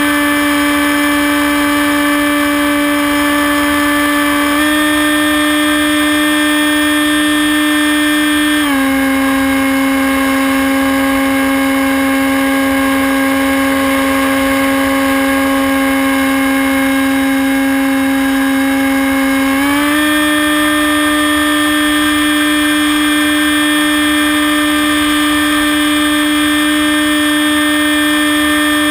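Hawk Sky RC plane's electric motor and propeller whining steadily as heard from a camera on the plane. The pitch steps down slightly about nine seconds in as the throttle eases, then comes back up about twenty seconds in.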